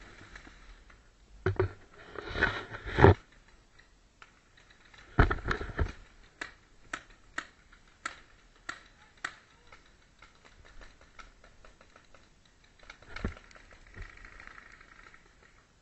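Scuffing and knocks of gear against the tree and wall, then a steady run of about eight sharp single shots, roughly two a second, from a game gun firing semi-automatically, with one more shot near the end.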